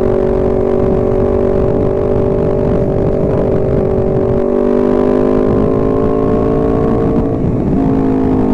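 Honda CBR250RR parallel-twin engine running steadily at riding speed, its pitch easing slowly down, with a brief dip and shift in pitch about seven and a half seconds in. A steady low rumble lies under the engine.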